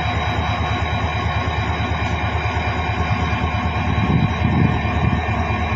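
Pakistan Railways HGMU-30 diesel locomotive idling steadily: a low engine rumble under a constant whine.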